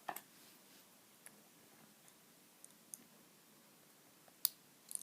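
A few sparse small metallic clicks and ticks, the loudest about four and a half seconds in. These come from handling tiny brass lock pins and lock parts with tweezers.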